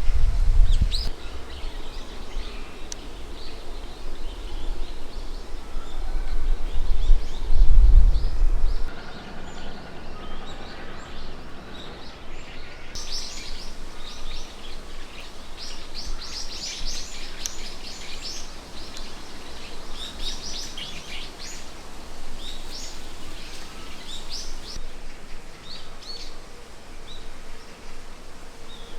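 Small birds chirping with many short, high calls, thickest in the second half. A low rumble runs underneath for about the first nine seconds.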